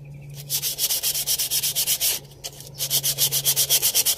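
A brake pad from a BMW X5 E53 being sanded by hand, in quick back-and-forth scraping strokes, to dress its friction face. The strokes start about half a second in, pause briefly a little after two seconds, then resume faster and louder.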